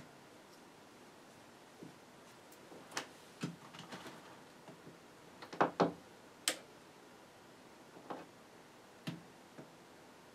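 Scattered light clicks and taps from hands handling test probes and multimeters on a workbench, a double knock about halfway through the loudest, quiet in between.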